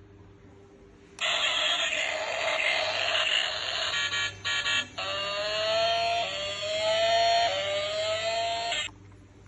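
Electric spray fire truck toy playing its built-in sound effects through a small speaker. A harsh noisy stretch starts about a second in, stutters briefly, then turns into siren-like rising tones that repeat about once a second, and it cuts off abruptly near the end.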